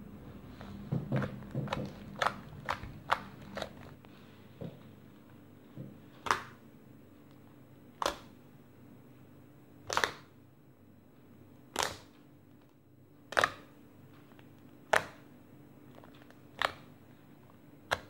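Homemade slime popping as it is pressed and kneaded, air pockets bursting with sharp clicks: a quick run of pops in the first few seconds, then one pop about every two seconds.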